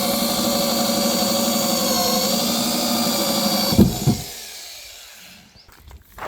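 Electric power drill running steadily under load, its pitch dipping slightly about two seconds in, then stopping with a knock just under four seconds in and winding down.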